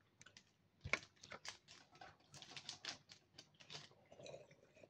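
Faint crinkling and crackling of a Feastables chocolate bar wrapper being opened by hand, a quick run of small crackles.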